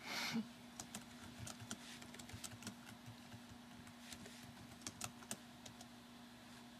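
Quiet lecture-room room tone: a steady low electrical hum with scattered faint clicks and taps, and a short noisy burst right at the start.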